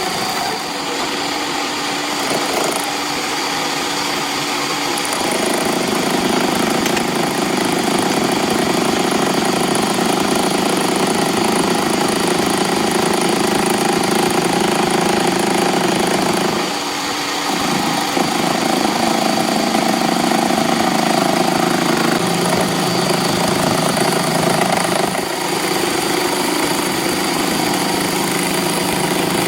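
Metal lathe running with a steady machine hum and whine, its tone changing about five seconds in and again around seventeen seconds.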